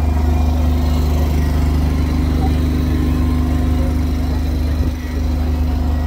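An engine running steadily at constant speed: a loud, even low hum with a few steady tones above it.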